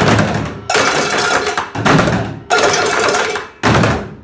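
An ensemble of recycled-material percussion (metal pots and pans, a cymbal and plastic buckets and drums) struck together in loud accented hits. There are five hits about a second apart, each left to ring and fade before the next.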